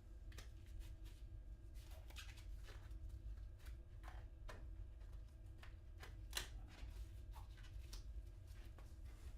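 Faint rustling, scraping and scattered light clicks of packaging being handled as a piece is dug out of its box and foam.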